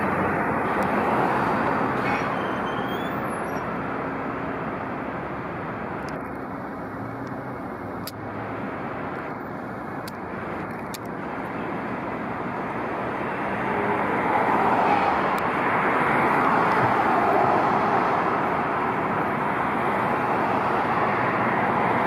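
Road traffic passing steadily, a continuous rush of tyres and engines that dips midway and swells louder again as more vehicles go by.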